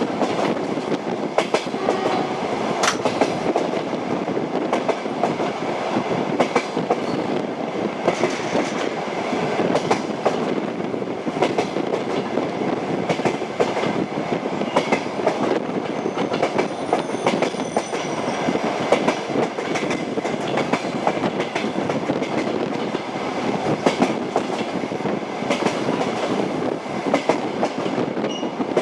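Train wheels clattering over rail joints as the train runs steadily, a continuous rolling rumble with frequent clicks. A faint high whine comes in for a few seconds a little past the middle.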